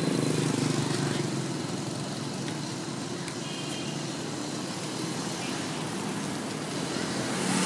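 Motorbike engine running steadily amid street traffic noise, with a car passing close near the end.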